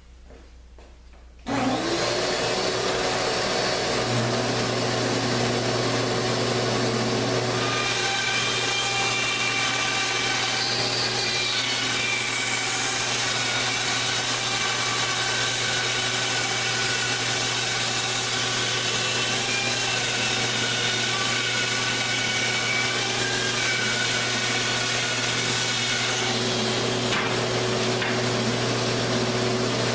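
Bandsaw running and rip-cutting a 15/16-inch white ash board along a 12-to-1 scarf slope, a rough cut to take off the bulk of the wood. The loud, steady running starts suddenly about a second and a half in, and a higher whine joins it several seconds later.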